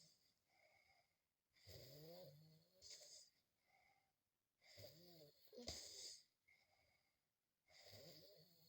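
A sleeping person snoring faintly, one long rasping breath about every three seconds, each with a whistling, shifting tone in it and a softer breath after.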